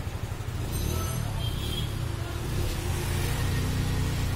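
A steady low rumble of background noise, with a faint steady hum coming in about halfway through.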